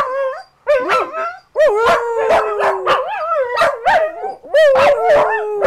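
Corgis howling and yipping: two long howls that slowly fall in pitch, about two seconds in and again near the end, with short wavering yips between them.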